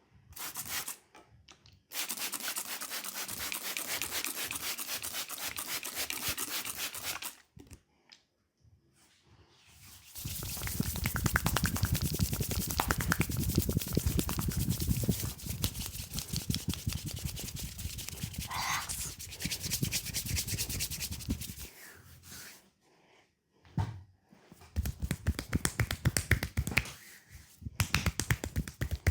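Hands rubbing fast over bare skin in a leg massage, many strokes a second, in two long runs, the second heavier. Near the end come scattered sharp slaps or taps.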